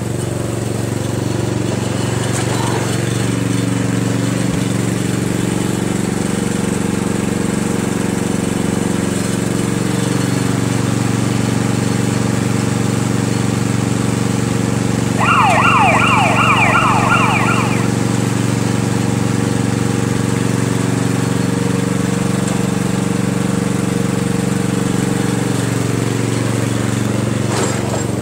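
Riding lawn mower engine running steadily. About halfway through, a loud burst of rapidly repeated falling whistle-like tones cuts in over it for about two and a half seconds.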